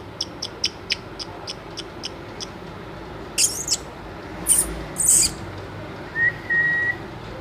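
Pet parrot making a run of quick clicks, about four a second, then three short harsh screeches, and a single steady whistled note near the end.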